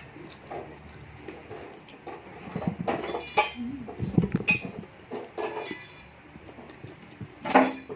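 Close-up eating sounds of chicken feet adobo being nibbled and chewed, with scattered light clinks of dishes or cutlery and a louder burst near the end.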